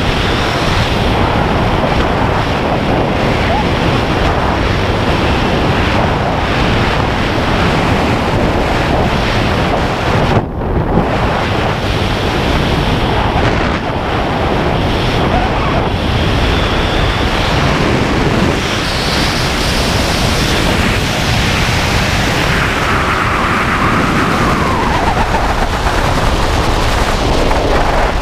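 Steady rushing wind noise from airflow over a helmet-mounted camera's microphone during a parachute descent under canopy. A faint whistling tone slides down in pitch in the last few seconds.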